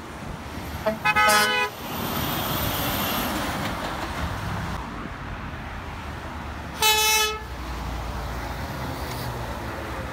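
Two short honks of a vehicle horn, the second about six seconds after the first, over the steady noise of passing road traffic.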